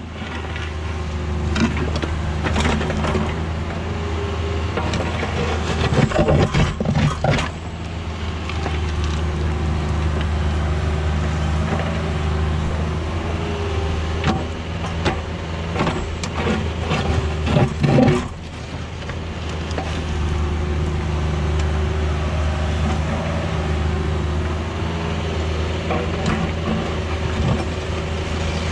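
Diesel engine of a mini excavator running steadily, with bursts of knocking and scraping from the machine at work, about six seconds in and again between fourteen and eighteen seconds in.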